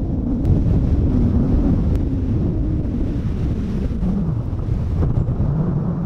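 Strong wind buffeting a camera microphone that has only a foam cover, giving a loud, steady low rumble.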